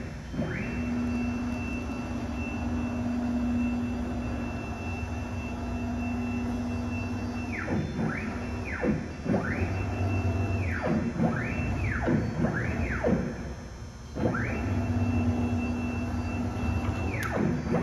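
AXYZ 4020 ATC CNC router running: a steady high machine whine over a low hum. Several times in the second half the whine swoops down in pitch and climbs straight back, and about fourteen seconds in the sound briefly drops away before resuming.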